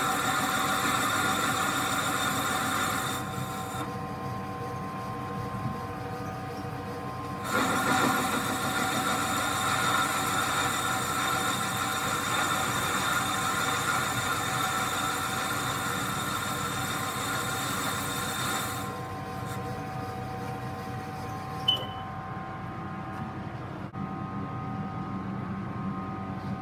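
CNC lathe spindle turning a cast-iron turbocharger turbine housing while the tool cuts its outlet: a steady machine whine with louder, hissier cutting stretches in the first few seconds and from about 7 to 19 seconds in. Late on, a single sharp tick.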